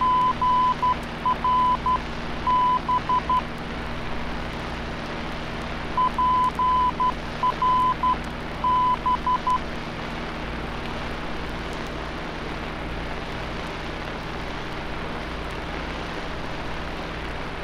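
Morse code identifier of the Paso Robles VOR (omni range) heard through an aircraft navigation receiver: a steady beep keyed in three letters of dots and dashes, sent twice about six seconds apart, over steady receiver hiss and hum.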